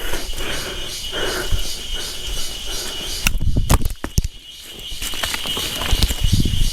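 Forest insect chorus, a steady high whine with a pulsing shimmer above it, joined by rustles and low thumps close to the microphone.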